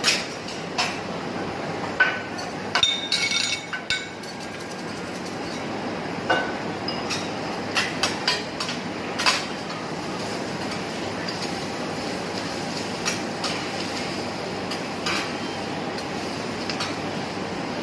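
Food sizzling steadily on a teppanyaki griddle, with metal spatulas clinking and scraping against the hot plate, the clinks frequent in the first half and sparser later.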